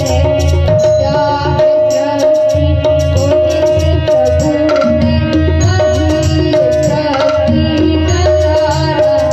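Live Indian devotional bhajan music: a tabla keeps a steady rhythm under a keyboard melody with a long held note, and a young singer's voice comes in at times.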